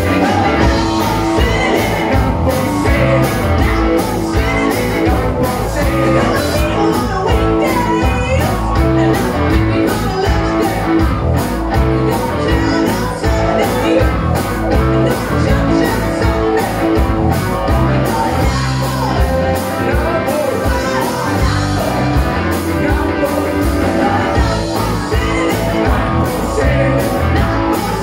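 Live blues-rock band playing loud: two electric guitars and a drum kit keeping a steady beat, with a woman singing lead into a microphone.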